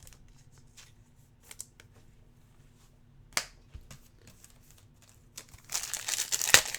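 A few faint clicks and light card handling, then from near the end a trading-card pack's foil wrapper is loudly crinkled and torn open.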